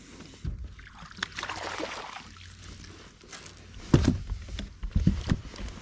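Water splashing and sloshing around a small fishing boat, with several dull thumps.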